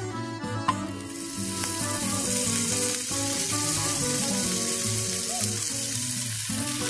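Butter sizzling as it melts in a hot cast iron skillet, the sizzle starting about a second in, just after a short tap.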